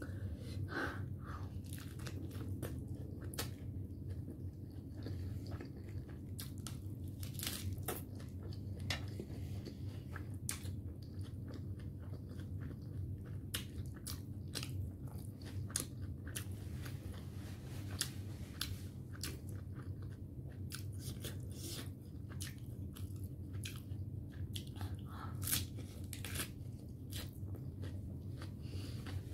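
Close-miked eating: chewing and biting into lettuce-wrapped momo dumplings, with irregular crisp crunches of the fresh lettuce leaf throughout. A steady low hum runs underneath.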